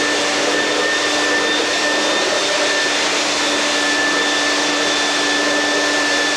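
Shop vacuum running steadily with a constant whine, cleaning up after sanding.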